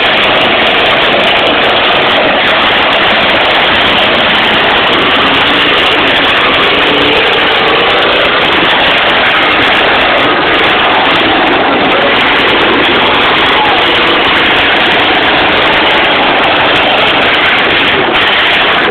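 Many demolition derby cars' engines running and revving at once in a loud, unbroken racket, their pitches wavering up and down.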